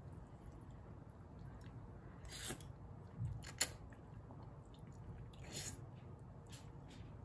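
A person slurping thin glass noodles from a bowl of soup: two short slurps, one about two and a half seconds in and one near the end, with a sharp click between them and soft mouth sounds of chewing.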